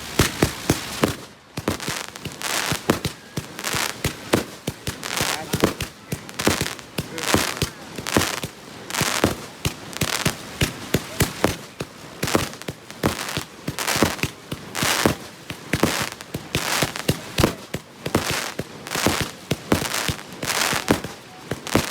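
Monkey Business 100-shot firework cake firing: a steady, rapid string of shots, about two to three a second, each a sharp bang, with a crackling hiss between them.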